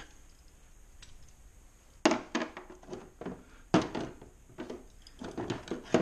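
Metal hand tools and sockets clinking and knocking against a plastic tool case as they are picked through. There are a few clusters of clicks and knocks, starting about two seconds in.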